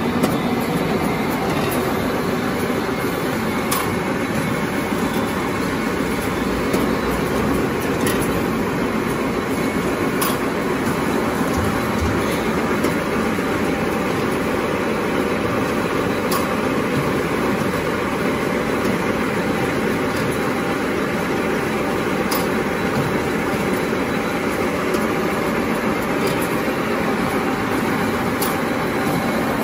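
Automatic napkin tissue folding and glue-lamination production line running at speed: a steady, dense mechanical clatter, with a sharp click now and then.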